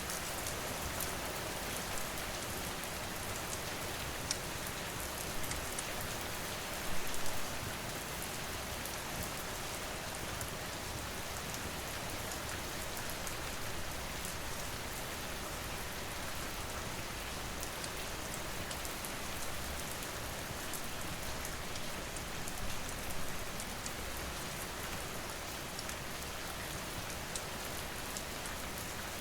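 Steady rainfall mixed with a crackling wood fire: an even hiss of rain with scattered small sharp pops, and a few louder clusters of crackles about 7 and 23 seconds in.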